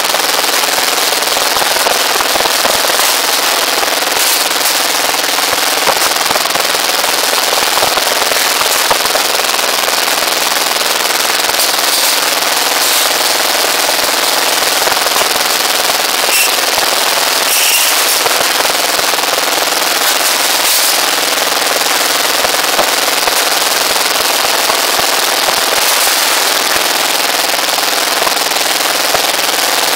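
Small stationary engine driving a rebar bending machine, running steadily with a fast, dense clatter of rapid pops.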